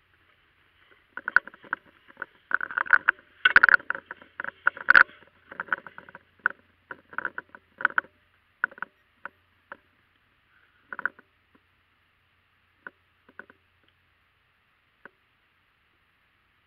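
Turkey clucking: a quick, irregular run of short, sharp notes for about the first five seconds, then single clucks spaced out with pauses.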